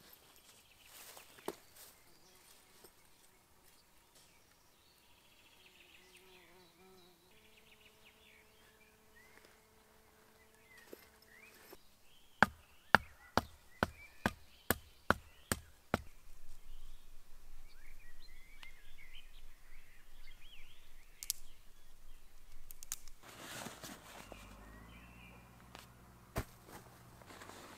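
A run of about nine sharp knocks, two or three a second, made while pitching a mosquito-net bivy in a field. Birds chirp faintly afterwards, and gear rustles near the end.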